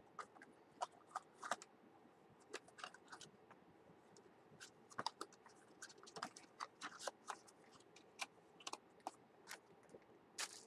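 Faint, irregular clicks and crackles of packaging and small items being handled and opened by hand.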